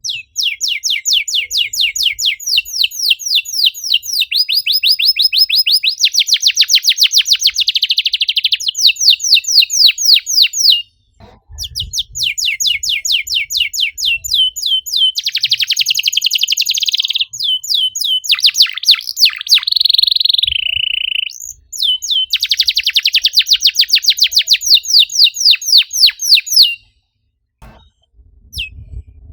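Domestic canary singing a fast, dense song: runs of loud, repeated down-slurred chirps at about six a second, alternating with quicker buzzing rolls. The song breaks off briefly about eleven seconds in and stops shortly before the end.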